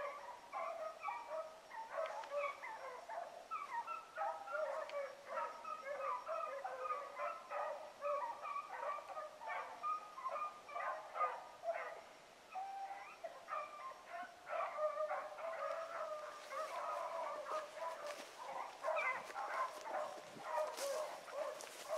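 A pack of rabbit hounds baying in the distance, many overlapping calls going on without a break: the dogs are running a rabbit's trail.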